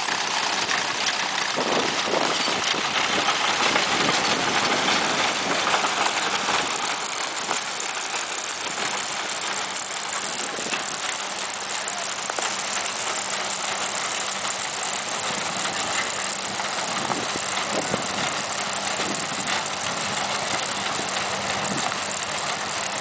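Massey Ferguson 35 tractor engine running steadily as it pulls a reaper-binder through wheat, with the binder's cutter bar and mechanism clattering continuously.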